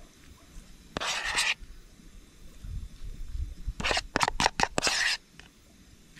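A spoon scraping and spreading sauce over toasted bread: one short scrape about a second in, then a quick run of about six scraping strokes a few seconds later.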